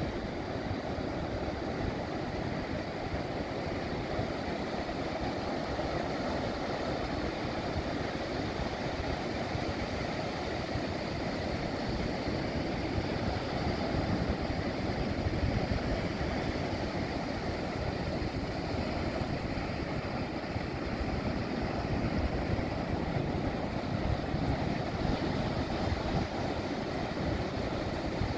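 Ocean surf breaking and washing up a sandy beach: a continuous rushing with a deep rumble underneath, swelling slightly a couple of times as larger waves come in.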